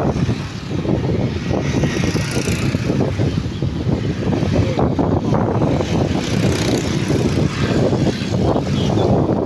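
Heavy rain with wind buffeting the microphone, a dense, gusty rumbling hiss that swells and fades without pause.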